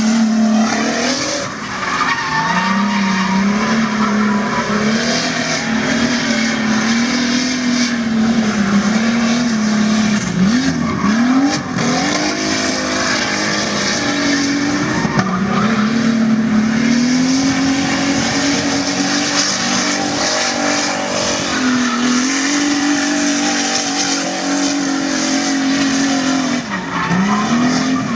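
Drift car engine held high in the revs while the tyres squeal through long slides. The revs dip and climb back a few times, about ten seconds in, again past twenty seconds, and near the end.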